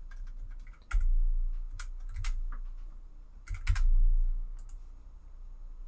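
Typing on a computer keyboard: scattered keystrokes in two short clusters, about a second in and again near four seconds, each with a low thump or rumble under it that is the loudest part.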